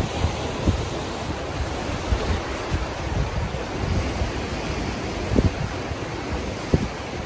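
Ocean surf washing and foaming over the rocks of a small cove, with wind buffeting the microphone in short low thumps, the strongest about five and a half seconds in and again near the end.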